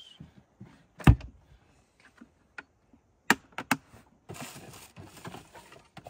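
Food containers and packaging being handled and set down on a plywood fold-down tailgate table. There is one heavy thump about a second in and a few sharp clicks, then a couple of seconds of plastic packaging rustling.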